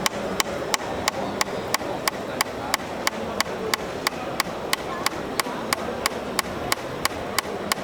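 Sharp, evenly spaced mechanical clicks repeating about three times a second, over a steady murmur of exhibition-hall background noise.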